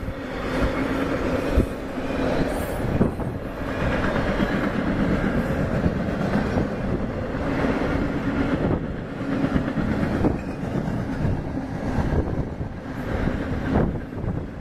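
CSX intermodal freight train's double-stack well cars rolling past: a steady rumble with steel wheels clicking and clacking over rail joints.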